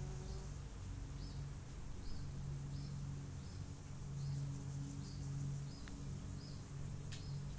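Forest ambience: short high chirps repeat about every three quarters of a second over a low hum that swells and fades. A single click comes near the end.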